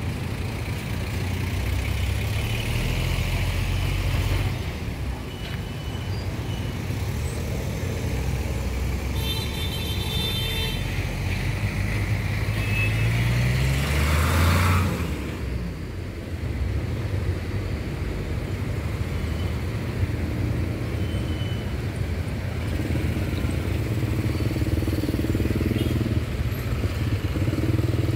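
Street traffic heard from among the vehicles: engines running steadily. About halfway through, one engine revs up, rising in pitch, then a short loud rush of noise follows.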